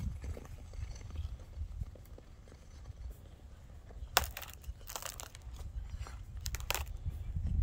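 A few sharp scrapes and crunches on frozen pond ice, about four seconds in, around five seconds and again near the end, over a steady low rumble.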